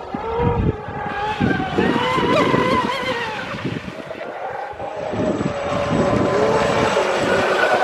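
Radio-controlled speed boats running flat out, their motors whining in several pitches that rise and fall as they race and turn, with low rumbling gusts underneath.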